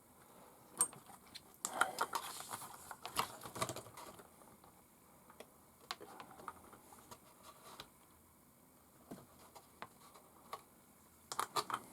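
Light, irregular clicks and taps of small metal and plastic parts being handled: brass wheel weights, a tiny RC crawler wheel and a small spanner being worked on a hub. The clicks come in a busy patch in the first few seconds and again in a quick run near the end.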